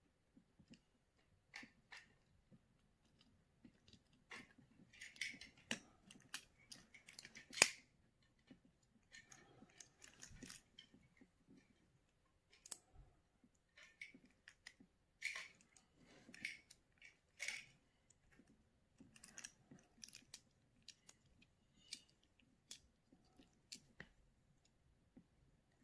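Plastic parts of a Tomy Plarail toy train's motor chassis being handled and worked apart by hand: scattered faint clicks and snaps, the sharpest about eight seconds in.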